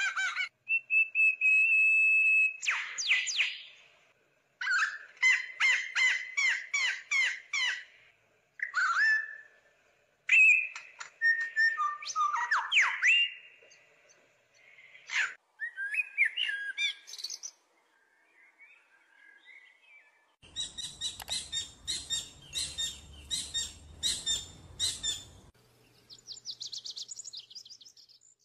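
Songbirds calling: runs of quick repeated chirps and whistled notes, with short pauses between phrases.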